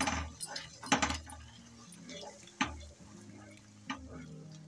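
Wooden spatula scraping and knocking against a nonstick kadhai as raw eggs are stirred into fried onions, four strokes roughly a second apart.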